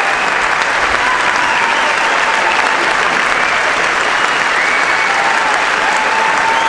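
Large audience applauding steadily, a dense clapping that does not let up.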